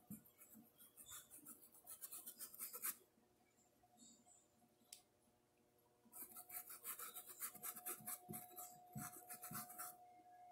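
Paintbrush scrubbing quickly against a porcelain cup while blending paint: two spells of fast scratchy strokes of about three seconds each, with a short pause and a single tap between them.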